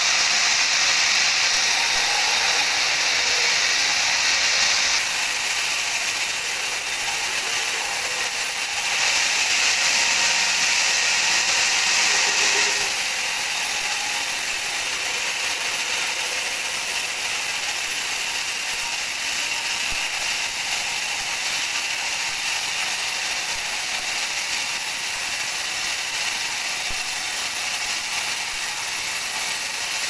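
Sawmill band saw ripping lengthwise through a large teak log, a steady hissing noise of blade and sawdust. It shifts in tone abruptly a few times in the first dozen seconds.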